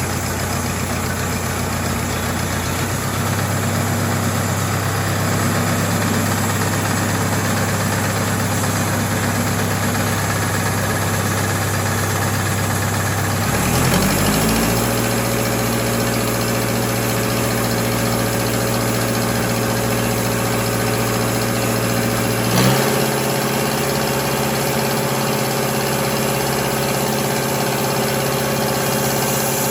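Sawmill engine running steadily. It rises in pitch over about a second around 14 s in and settles at a new speed, then changes again with a short knock near 23 s.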